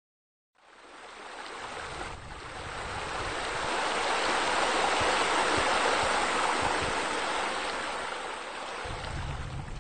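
Rushing water, like a waterfall pouring into a pool: a steady wash that fades in shortly after the start, swells to its loudest midway and eases off near the end.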